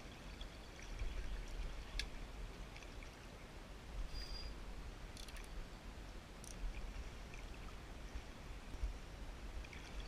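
A small river flowing over stones: a steady rush of running water, with a low rumble on the microphone underneath. There is one sharp click about two seconds in, and a few fainter ticks.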